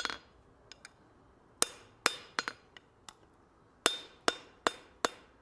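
Hand hammer striking a red-hot steel tong blank on an anvil: about eight sharp blows in short irregular groups, several leaving a bright metallic ring. The jaw is being forged with half-on, half-off blows at the anvil's edge.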